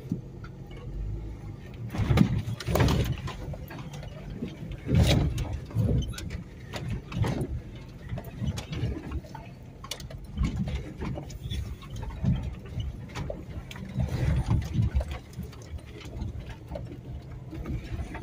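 Suzuki Sidekick crawling down a rough, rocky dirt track, heard from inside the cabin: a low engine rumble under irregular thumps and rattles as the body jolts over the rocks.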